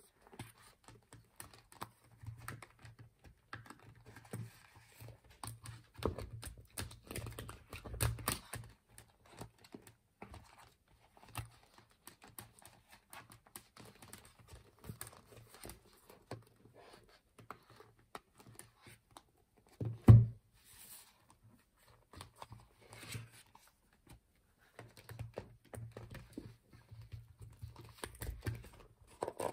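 Handling noise of a thick paper planner being worked into a clear plastic cover on a desk: scattered small taps, clicks and rustles. There is one loud thump about twenty seconds in.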